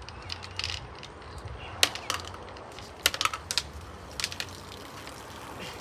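Scattered sharp clicks and knocks, some single and some in quick clusters, over a low steady rumble.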